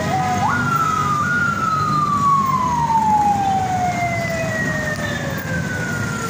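A siren sounding over the low rumble of jammed traffic: its pitch jumps up sharply twice within the first second and a half, then falls slowly and steadily through the rest, with a fainter second falling tone joining about four seconds in.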